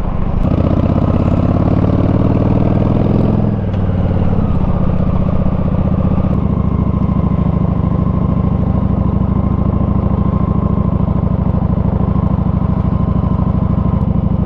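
Motorcycle engine pulling with its pitch rising, then dropping off about four seconds in and settling into steady low running for the rest.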